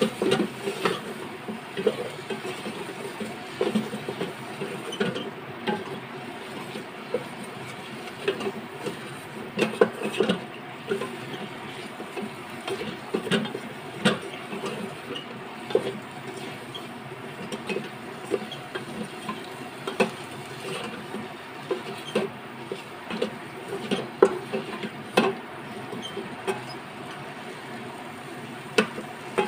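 Wooden spatula stirring okra and onions frying in a metal pot, with frequent irregular scrapes and knocks against the pot over a steady low hum.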